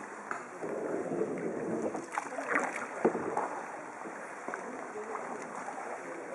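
Kayak paddles dipping and splashing in calm water, with a few sharper splashes or knocks about two to three seconds in.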